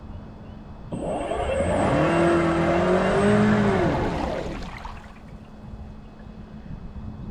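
Radio-controlled model boat's motor running past at speed, its note rising and then falling over about four seconds and loudest in the middle.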